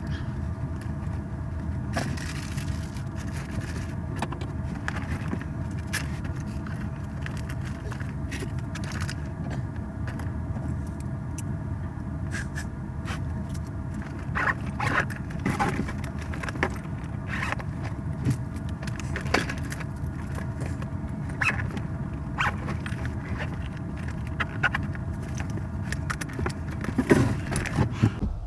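York gas furnace running, its newly replaced inducer motor and blower humming steadily with a few steady tones. Scattered metallic clinks and rattles break in, more often in the second half.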